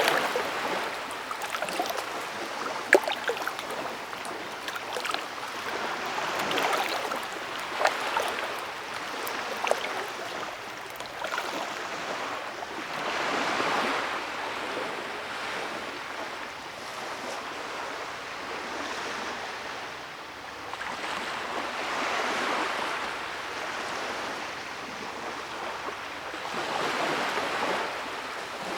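Stream water running over stones: a steady rush that swells and eases every few seconds, with small sharp splashes in the first few seconds.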